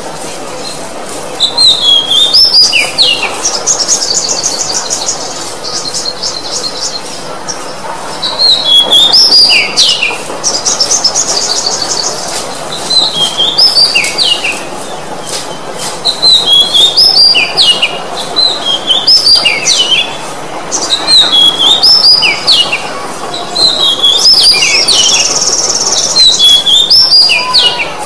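Oriental magpie-robin (kacer) singing loudly in repeated phrases of clear whistled notes that slide up and down, with short pauses between phrases. Fast, high trills come in three times. A steady low background hiss runs underneath.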